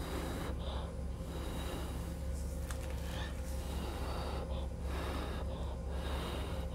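A person blowing hard through pursed lips across wet acrylic paint on a canvas to push and stretch it, in long breaths broken by short pauses to inhale, over a steady low hum.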